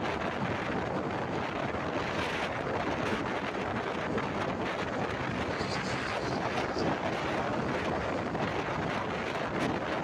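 Steady wind rush over the microphone with the road and engine noise of a motorbike riding at speed. Another scooter passes close alongside about six seconds in.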